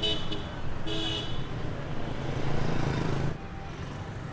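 Street traffic with two short vehicle-horn toots about a second apart, then a vehicle engine passing close by; the traffic sound drops off suddenly near the end.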